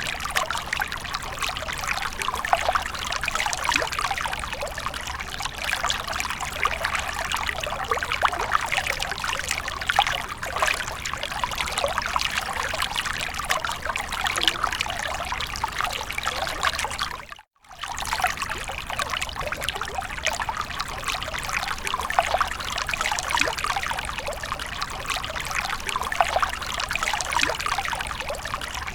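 Water from a fountain splashing and trickling steadily, with fine splashes throughout. The sound cuts out for a split second a little past halfway, then resumes.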